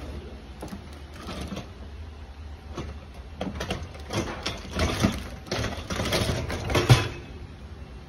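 Irregular rustling and knocking handling noise in clusters that grow busier after about three seconds and peak in one sharp knock about seven seconds in, over a low steady hum.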